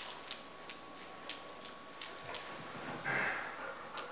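Golden retriever puppy chewing on a plush cupcake toy: scattered small clicks and smacks from his mouth and teeth on the toy, with a brief louder rustle about three seconds in.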